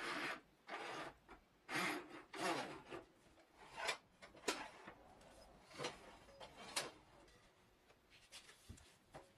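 Wooden front jaw of a quick-release bench vise being worked by hand and slid off its screw and guide bars: a series of short wood-on-metal rubbing and scraping strokes with a couple of sharp clicks, dying away after about seven seconds.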